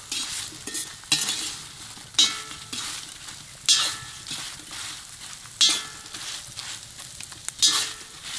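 Potatoes and sausage sizzling as they fry in a pan while being stirred quickly. A utensil strikes and scrapes the pan about six times at uneven intervals of one to two seconds, over a steady sizzle.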